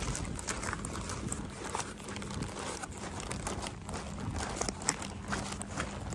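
A kraft paper bag and a plastic bag crinkling and rustling as they are held and carried, an irregular run of crackles.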